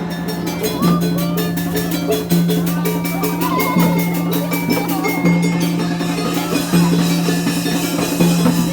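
Obrog street-music ensemble playing: drums keep a fast even beat over a held low note, with a gliding melody line above.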